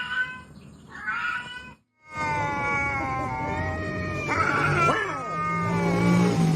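A cat meowing twice in short calls, then, after a brief break, long drawn-out yowling with slowly wavering pitch over a low steady hum.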